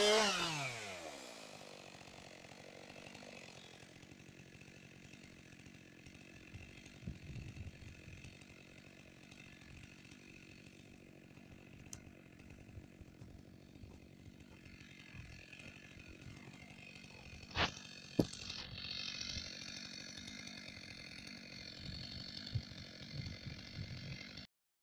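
Chainsaw engine winding down and stopping, its pitch falling away within the first second or so. Then only faint rustling and light knocks, with two sharp clicks about eighteen seconds in.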